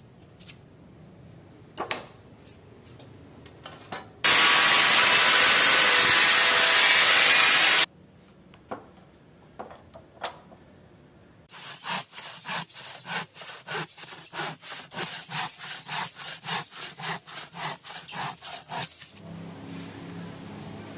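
Hand saw cutting wood with quick, even strokes, about three a second, through the second half. Before that comes a loud, steady noise that starts and stops abruptly and lasts about three and a half seconds, with a few scattered knocks around it.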